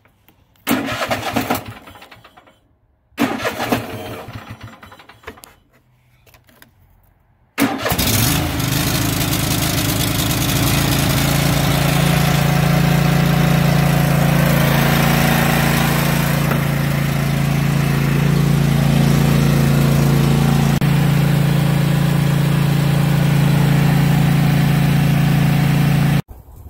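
Cub Cadet LT1 riding mower engine started with its newly fitted electric starter: it catches about eight seconds in and runs at a steady speed, a sign that the new starter works.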